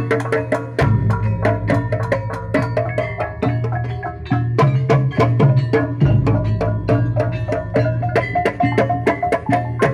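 Javanese kuda kepang gamelan music. Hand-beaten kendang drums and struck metal pot gongs and metallophones play a dense, fast pattern of ringing strikes over a steady low drone.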